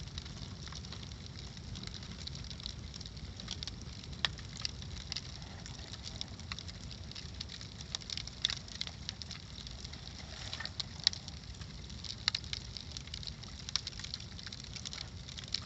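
Bonfire crackling, with many small irregular pops and snaps and a few louder ones, over a steady low rumble.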